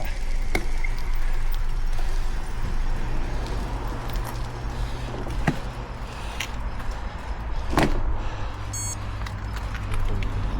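Wind rumbling on the microphone with rolling noise from a bicycle ride, broken by a few sharp clicks and knocks, the loudest about eight seconds in.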